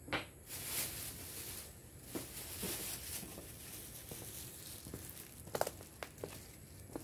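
Rain pattering on leaves, an even hiss, with a few sharper taps and drips about two-thirds of the way through.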